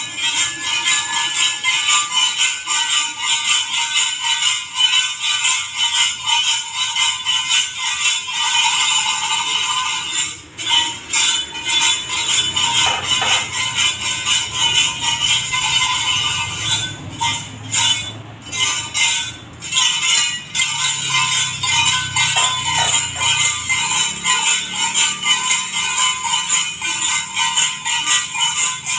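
Ritual metal bells jingling and ringing in a fast, continuous stream. The sound dips briefly about ten seconds in and breaks off a few times in quick succession a little later.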